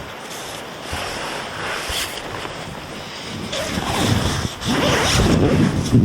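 Strong wind gusting and buffeting the microphone, swelling into a louder low rumble from about three and a half seconds in.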